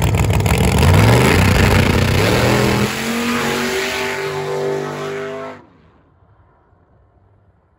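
Race car accelerating hard: loud engine climbing in pitch, a gear change about three seconds in, then climbing again. The sound stops abruptly a little past halfway, leaving only a faint low rumble.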